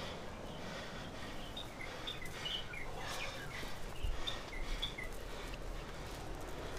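Short, scattered bird chirps over a steady rustle of leaves and undergrowth being pushed through and grabbed while climbing. A low rumble joins about four seconds in.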